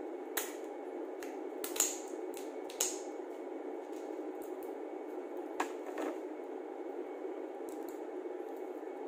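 Fingers peeling and cracking cooked shellfish shells: a few sharp crackles and clicks, the loudest about two and three seconds in and again past the halfway point, over a steady background hiss.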